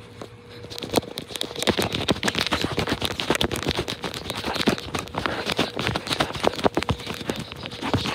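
Fast, irregular scratching and tapping close to the microphone, starting about a second in: a pencil or pen scribbling on paper.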